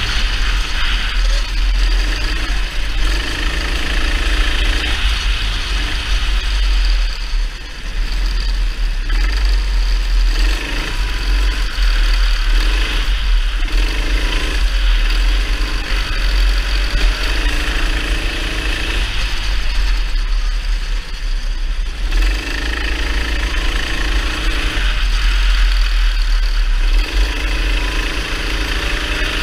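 A racing kart's engine heard from the driver's seat, its note rising and dropping every few seconds as it accelerates and eases off through the corners, over a constant deep rumble.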